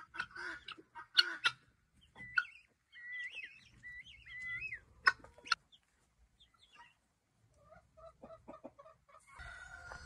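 Chickens clucking and calling: a quick series of calls at the start, wavering higher calls a few seconds in, and a run of short low clucks near the end. A steady mechanical drone comes in abruptly just before the end.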